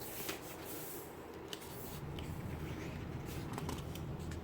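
Faint paper handling: a few soft rustles and light ticks as thin Bible pages are touched and turned.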